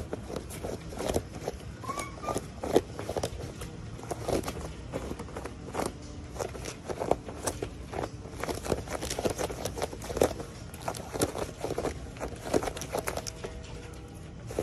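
Foxes scuffling on a tiled floor: a dense, irregular run of light clicks and scrapes, with a brief high squeak about two seconds in.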